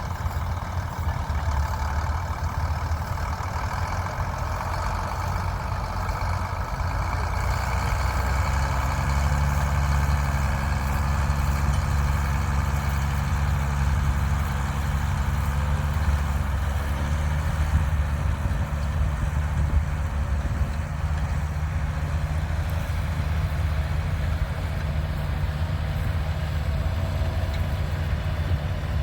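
Classic tractor engine running steadily while ploughing; the low engine note grows louder and fuller about eight seconds in.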